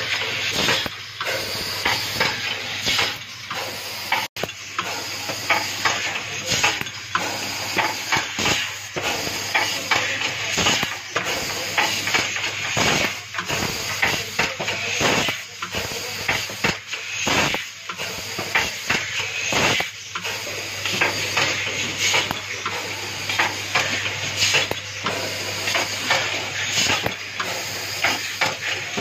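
Automated switch assembly machine running, with rapid, irregular clicking and clatter from its tooling and the parts it places, over a steady hum. Compressed air hisses throughout from its pneumatic actuators.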